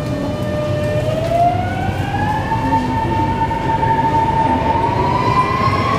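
MRT electric train accelerating away from a station, heard inside the carriage: the traction motors give a whine that climbs in pitch, levels off, then climbs again near the end, over the rumble of the running train.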